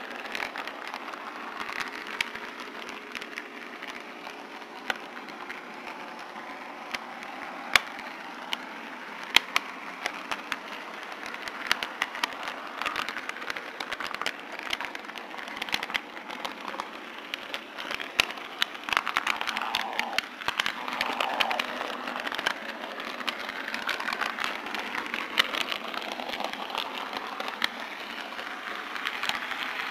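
HO scale model train rolling along its track, picked up by a small camera riding on a flatcar: a steady rumble of small metal wheels on the rails with irregular sharp clicks as the wheels cross rail joints and turnouts, and a brief wavering whine about two-thirds of the way through.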